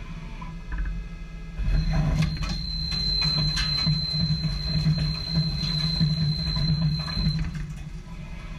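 Samsung MCV 50 CNC lathe moving inside its enclosure. A hum and a steady high whine start about two seconds in and stop near the end, with scattered clicks.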